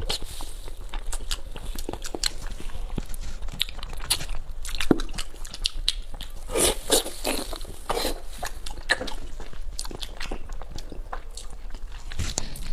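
Close-miked eating sounds: a person biting and chewing soft, gelatinous deboned pig's trotter, with many irregular wet smacks and clicks of the mouth.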